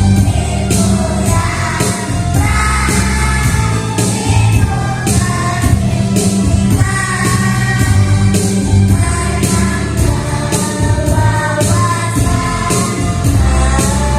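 Kindergarten children's choir singing over a backing track with a steady beat and heavy bass.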